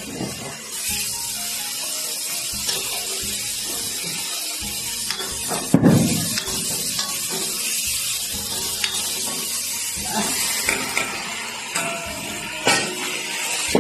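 Vegetables sizzling steadily in hot lard in a wok while a metal spatula scrapes and stirs them. There is a loud knock about six seconds in and a few metal clanks near the end as a lid is lifted off the wok.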